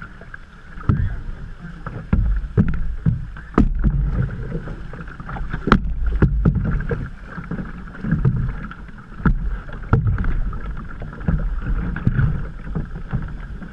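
Canoe on fast, flood-swollen creek water: the current rushing along the hull, with irregular splashes and sharp knocks from paddle strokes over a steady low rumble.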